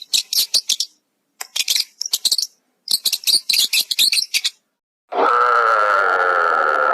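Animal calls: three runs of rapid, high chirps, then a long, harsh, pitched call lasting about two seconds near the end.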